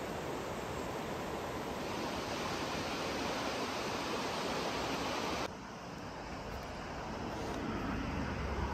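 Steady rush of river water. About five and a half seconds in it cuts off sharply to a quieter, duller hiss, with a low rumble building near the end.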